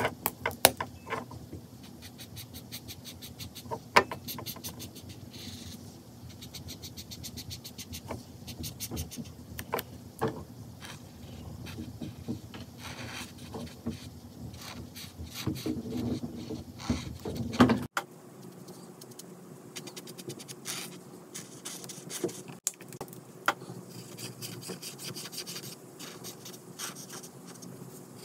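Ohuhu marker tip stroking and dabbing on colouring-book paper. It makes quick runs of short scratchy strokes, broken by a few sharper clicks.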